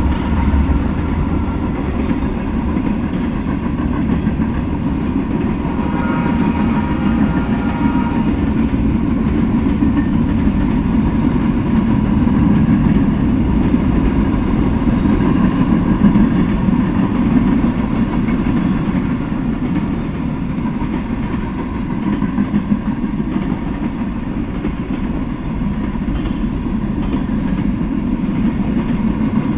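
Freight cars of a passing train rolling by, their steel wheels giving a steady rumble on the rails.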